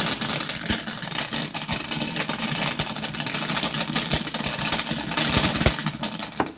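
500-gram ground fountain (shower) firework spraying sparks: a loud, steady hiss full of fine crackling, which cuts off suddenly near the end.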